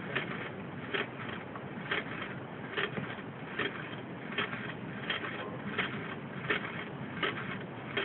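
Small stainless steel balls rolling and clacking inside the glass test tube of a flip-flop Stirling engine as it tips back and forth, a sharp click a little faster than once a second over a steady background hiss.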